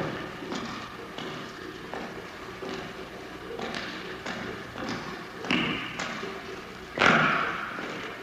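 A series of separate thumps and knocks; the loudest comes about seven seconds in and dies away over about a second, with another strong one a little before it.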